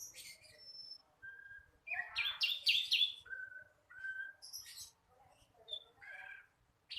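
A young sikatan londo flycatcher singing, still learning its song: a string of short scratchy chirps and twittering notes, loudest in a quick run about two seconds in, mixed with a few short level whistles.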